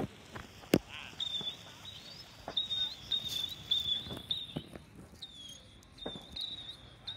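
Ground fireworks going off: two sharp bangs within the first second, then scattered fainter pops. A steady high-pitched trill runs beneath from about a second in.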